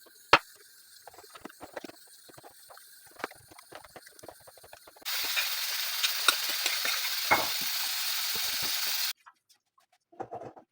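Light clicks and knocks of kitchen utensils. Then, about five seconds in, food frying in hot oil: a steady sizzle with crackles that starts and stops abruptly after about four seconds.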